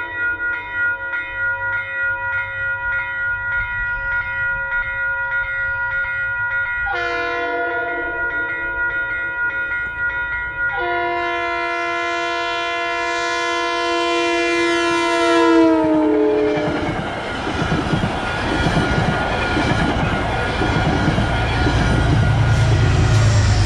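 Grade-crossing warning bell ringing steadily as a Metro-North commuter train approaches. The train's horn then sounds about seven seconds in, breaks off briefly and sounds again, its pitch dropping as the train reaches the crossing. The horn gives way to the loud rumble and clatter of the coaches passing close by.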